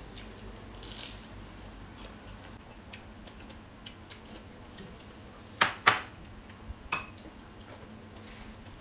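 Cutlery and glassware clinking against dishes at a meal table: two sharp clinks close together a little past halfway and a third about a second later, with faint small ticks in between.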